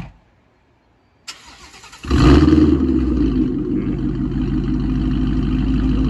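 Ford Mustang GT's 5.0 V8, breathing through a Borla ATAK cat-back with an X-pipe, warm-starting. After a brief click, the starter cranks for about a second; then the engine catches with a loud flare, the loudest moment, and settles into a steady idle.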